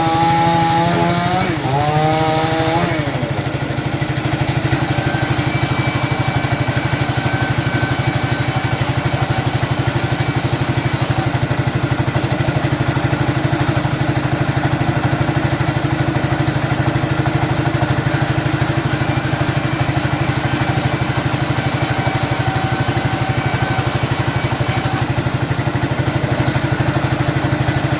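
A sawmill's engine-driven saw finishes a cut through coconut wood in the first few seconds, its pitch wavering and then sagging. After that the engine runs on steadily with no load.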